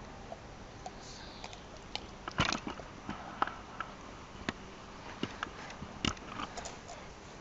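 A dog chewing on an egg in its shell: irregular sharp cracks and crunches of eggshell between its teeth, loudest in clusters about two and a half and six seconds in.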